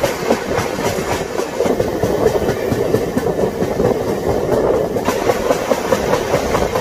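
Udyan Express passenger coaches running at speed, heard from an open doorway: a steady rumble of wheels on rail with a rapid, uneven clickety-clack.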